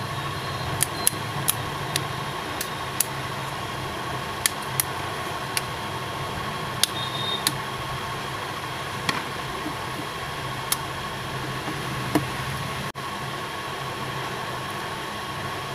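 A series of sharp plastic clicks, most of them in the first half, as the snap clips of an Intex Aqua Q7 smartphone's casing are pried apart with a thin metal tool along the seam. Under them runs a steady fan-like hum.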